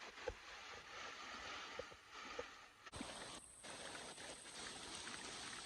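Faint, even rush of flowing water from the falls and creek, with a few small clicks. The sound changes abruptly about three seconds in.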